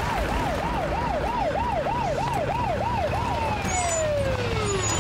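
Police car siren in a fast yelp, rising and falling about three times a second, then winding down in one long falling tone as the car stops.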